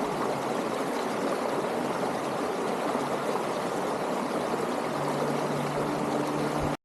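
Creek running steadily over its bed, an even rush of water. A faint low hum joins about five seconds in, and the sound cuts off abruptly near the end.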